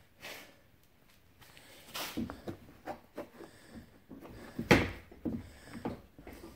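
Hard plastic grass-catcher bin of a Troy-Bilt double bagger being handled: scattered knocks and clicks, the loudest a little past the middle.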